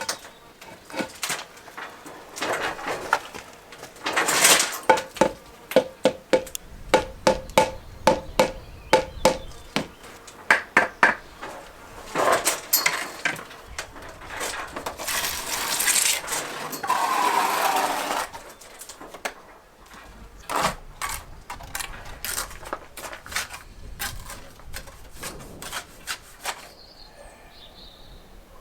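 A mason's trowel tapping and scraping on bricks and mortar: many sharp, briefly ringing taps in quick runs, with a longer scrape a little past halfway. Near the end it goes quieter, with faint bird chirps.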